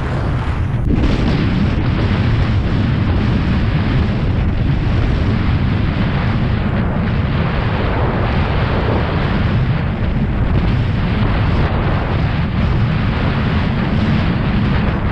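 Wind buffeting the microphone during a fast bicycle ride: a loud, steady, low rumbling rush.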